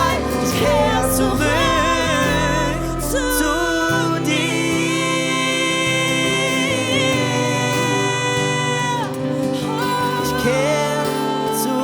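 Song music: a melodic line, most likely a voice, sings long held notes over bass and sustained chords.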